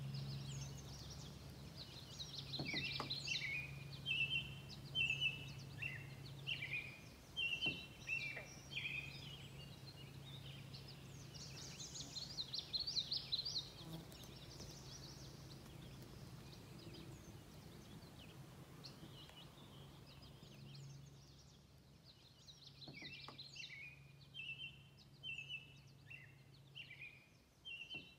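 A songbird singing in bouts of quick, high chirping phrases, going quiet for several seconds in the middle before starting again. A faint steady low hum runs underneath.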